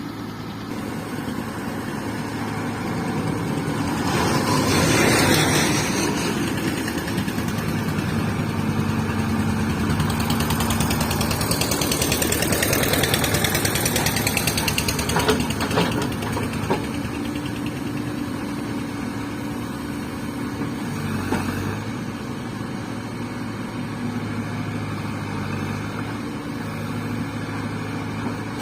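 Caterpillar 424B2 backhoe loader's diesel engine running steadily, rising in level under load about four to six seconds in and again around the middle, with a few short knocks a little past the middle.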